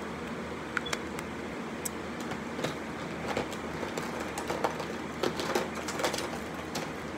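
Scattered clicks and light knocks of small makeup items being handled and rummaged through, over a steady background hum.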